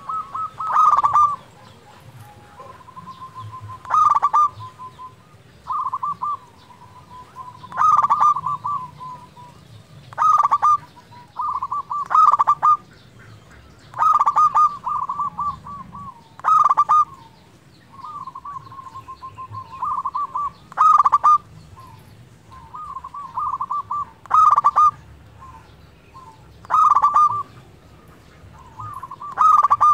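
Zebra dove (perkutut) singing: phrases of rapid staccato coos, each run building to a louder burst, repeated about every two seconds.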